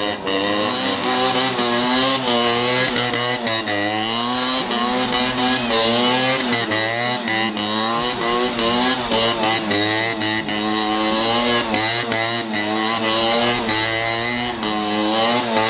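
Small red stunt motorcycle's engine revving up and down again and again, about once a second, its throttle worked constantly as the bike is ridden on one wheel.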